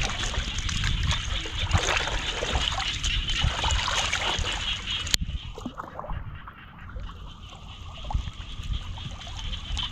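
Hands splashing and sloshing in shallow muddy floodwater at the mouth of a mesh net trap, many short irregular splashes. A sharp click about five seconds in, after which the splashing is quieter.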